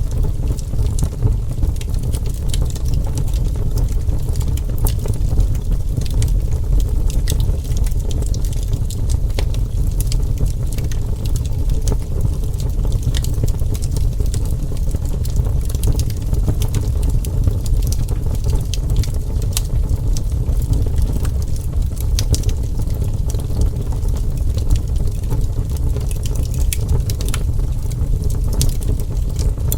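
Wood fire burning, with a steady low rumble and scattered sharp crackles and pops throughout.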